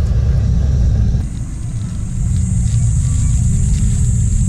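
Wind buffeting the microphone: a loud, uneven low rumble, joined about a second in by a steady high hiss.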